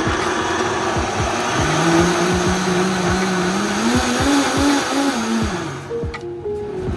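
Instrumental background music with a steady beat and a low melody line that moves up and down in steps.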